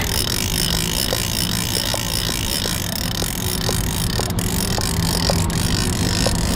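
Boat's outboard motor running at a steady low hum, with wind rushing over the microphone. A light, irregular ticking comes about once or twice a second as a fishing reel is cranked in against a hooked fish.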